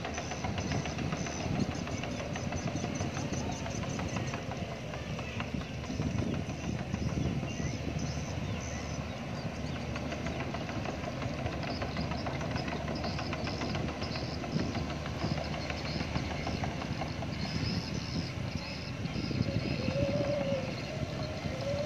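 Bobcat E45 mini excavator's diesel engine running steadily under working load as it digs with its boom and bucket, the rumble rising and falling slightly.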